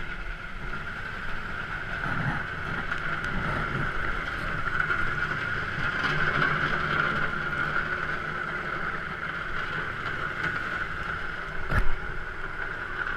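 Telehandler's diesel engine running steadily close by, with a steady hiss over it. One sharp knock near the end.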